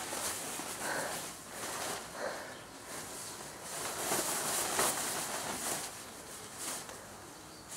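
Thin fabric of an inflatable dinosaur costume rustling and crumpling as it is pulled off and bundled down.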